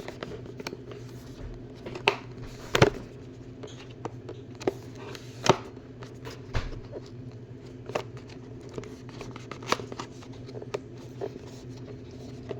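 Cardboard box being cut open and handled, with scattered scrapes and sharp clicks over a steady low hum.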